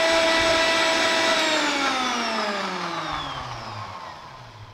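Electric blender motor running at steady speed, whipping curd and sugar, then switched off about a second and a half in; its whine falls steadily in pitch and fades as the motor spins down.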